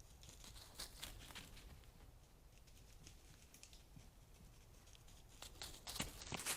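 Faint rustling and scattered crisp footfalls in leaf litter, getting louder and busier about five and a half seconds in.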